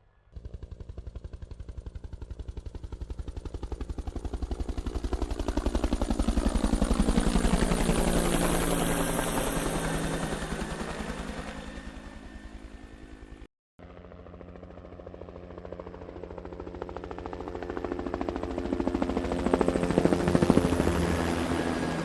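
Helicopter sound effect: rotor blades chopping in a fast, even beat, swelling loud and fading away as the pitch sweeps, as in a pass overhead. It cuts out for a moment about halfway, then a second pass swells and fades near the end.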